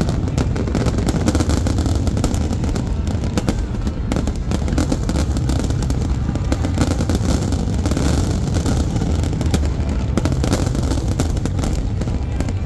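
Fireworks going off in quick, continuous succession: dense cracks and bangs over a steady low rumble.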